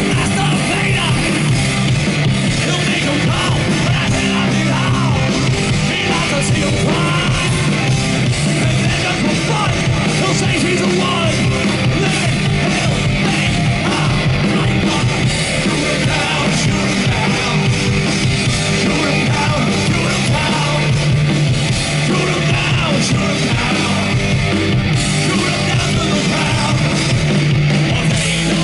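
Heavy metal band playing live: electric guitar, bass and drums, with a singer's yelled vocals over them.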